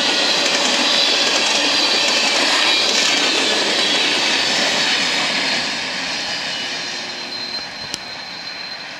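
Empty coal hopper train passing at speed: a loud, steady rush of wheels on rail as the last cars and the rear locomotive go by, fading away over the last few seconds.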